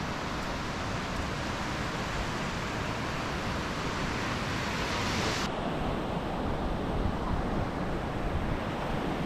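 Ocean surf washing on the beach with wind buffeting the microphone, a steady rushing noise that turns duller about five seconds in.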